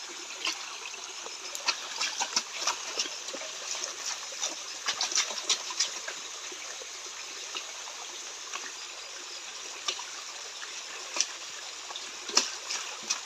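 Shallow stream water trickling, with irregular small splashes and sloshes as a gold-panning dish (dulang) is shaken and swirled in it. The splashes come thickest in the first few seconds and again near the end.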